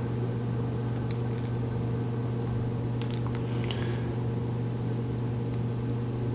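Steady low electrical hum with a buzzy edge at an even level. A few faint clicks about one and three seconds in, and a short faint squeak just after, as a small plastic helmet part is pushed into a rubber grommet.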